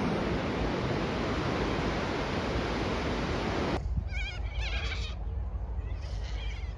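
Wind and surf noise on the beach, cutting off sharply about four seconds in. A flock of birds then calls in wavering, warbling cries, in two bouts, over a low background.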